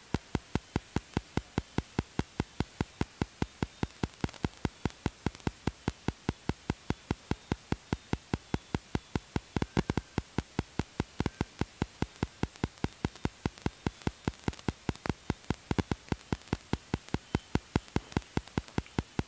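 Rapid, evenly spaced clicking over a faint steady hiss, about five clicks a second: crackling static on the recording.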